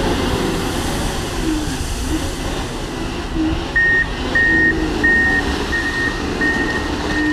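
Wheel loader's diesel engine working hard as it pushes gravel up the stockpile, its pitch rising and falling. About four seconds in, a reversing alarm starts beeping steadily, about one and a half beeps a second.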